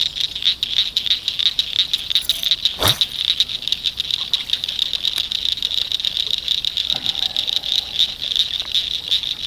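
Evening pond chorus of calling frogs and insects: a dense, steady, high-pitched pulsing trill that never lets up. One sharp click about three seconds in.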